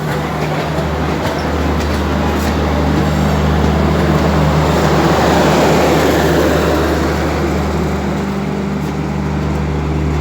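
A passing train: a locomotive's steady low hum under the rushing, rolling noise of the train, which swells to its loudest about halfway through and then eases.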